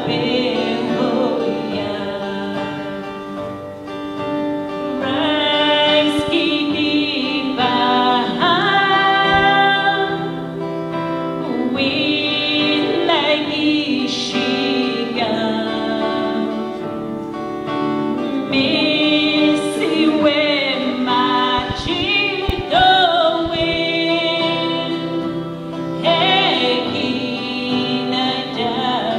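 A woman's voice leading a small group of singers in a song in Cree, with guitar accompaniment, in long sung phrases.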